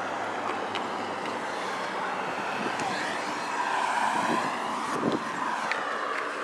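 Steady outdoor rushing noise of road traffic, with a few light knocks from the camera being handled against the locomotive.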